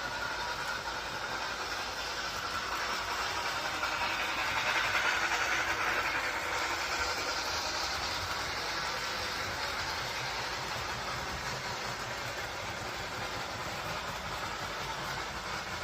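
A train running along the track with a steady rolling noise that swells to a peak about five seconds in, then settles back to a steady run.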